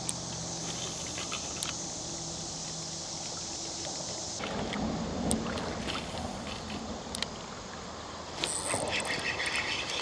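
Outdoor river ambience: a steady hiss of water and air, with a high, even hiss that cuts off about four seconds in. A few light clicks are heard, and insects start chirping in a fast, pulsing pattern near the end.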